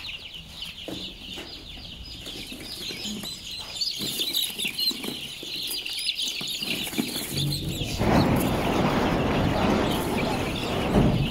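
A floor of hundreds of young chicks peeping, a dense chorus of short high chirps. About eight seconds in, a louder rough rushing noise joins in over the peeping.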